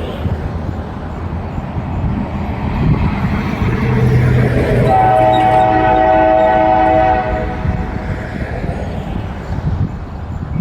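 CSX GP40-2 diesel locomotive running, with its EMD 16-cylinder engine rumbling, and sounding one long horn blast about five seconds in: a multi-note chord held for roughly two seconds.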